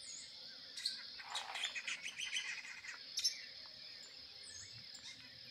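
Birds chirping and calling over a steady, high insect drone. A burst of rapid chirps runs from about one to three seconds in, with a sharp call about three seconds in.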